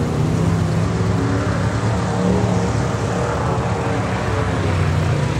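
Quad ATV engine running at a fairly steady pitch, rising and falling slightly.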